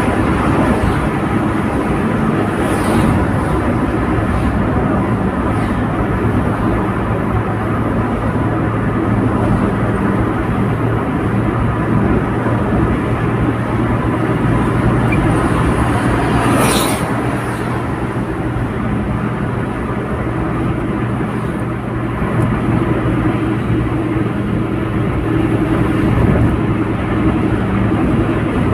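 Steady road and engine noise heard inside a car cruising on a highway, a low drone under tyre rumble. About two-thirds of the way through there is a brief louder rush of sound.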